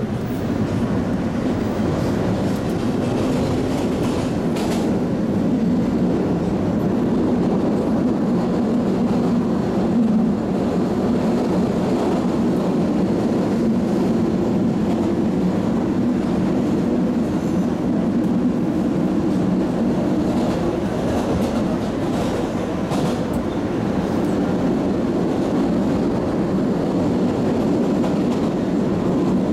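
MBTA Red Line subway car running through a tunnel, heard from inside the car: a steady rumble of wheels on rail, with a few faint clicks.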